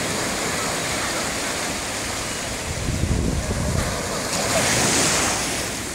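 Small waves breaking and washing up onto the sand at the water's edge, surging louder about three seconds in and again about five seconds in.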